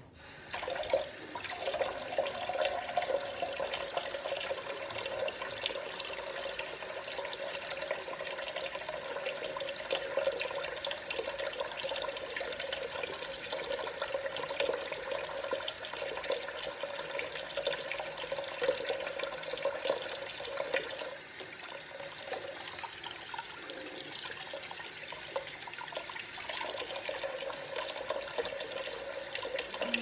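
Kitchen tap turned on and running into a stainless-steel sink while hands are washed and rubbed under the stream: a steady splashing of water.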